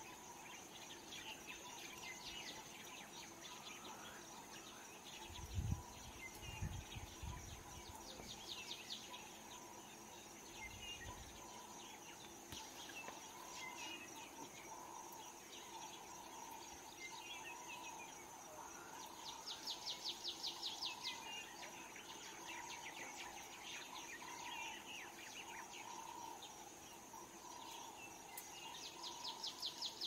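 Insects drone steadily with scattered bird chirps over them. A rapid pulsing trill comes about two-thirds of the way in and again near the end, and a few low thumps sound about a fifth of the way in.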